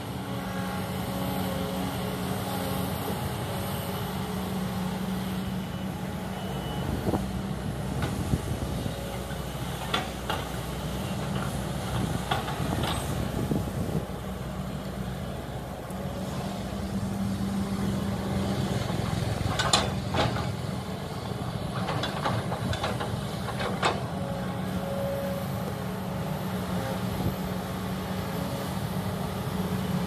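Kobelco crawler excavator's diesel engine running steadily under load as it digs and swings, with a few sharp knocks scattered through.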